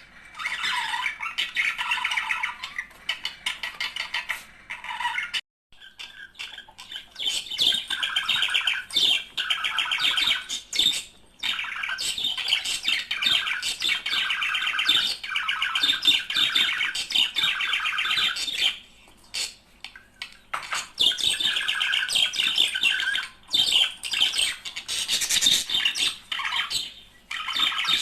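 Budgerigars warbling and chattering, a busy run of squawks, clicks and short whistles, with a brief break about five seconds in and a thinner patch near twenty seconds.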